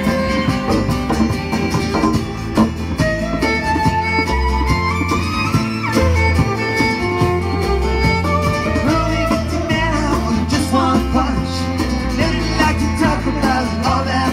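Band music with a violin lead over guitar and bass: the violin plays a melody with sliding notes, rising in pitch a few seconds in.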